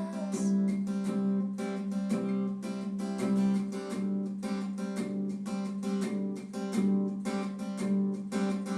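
Background music: acoustic guitar strummed in a steady rhythm, an instrumental break between the sung lines of a Spanish-language song.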